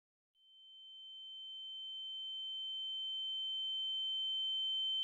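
A steady, high-pitched electronic tone fades in about half a second in and keeps slowly growing louder, with much fainter steady tones below and above it.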